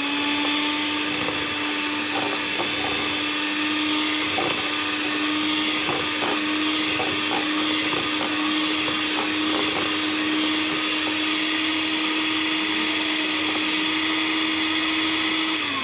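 Electric mixer beating sugar, eggs and vanilla extract in a bowl: a steady motor whine held at one pitch, with faint scattered ticks, slowing down right at the end.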